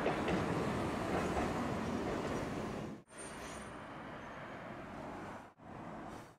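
Tosaden streetcar running on its rails: a steady rumbling noise that drops out abruptly for a moment about three seconds in and again near the end, and is quieter between the two drops.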